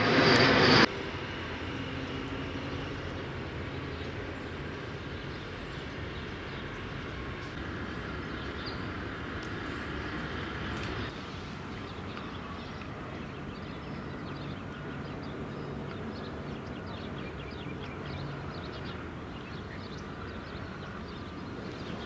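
A louder rushing noise cuts off abruptly just under a second in. Then comes a steady low outdoor background hum from a construction site and distant traffic, with faint clicks and knocks scattered through it.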